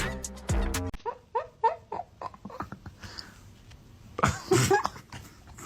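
Music cuts off about a second in. A pet animal then gives a quick run of about six short, high calls, each rising and falling in pitch, with a louder, noisier burst near the end.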